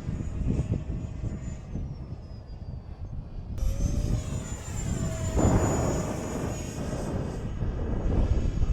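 Electric ducted-fan RC jet whining as it flies past, its pitch falling away. It comes round again with the whine rising and a loud rush of fan noise about halfway through. Wind buffets the microphone throughout.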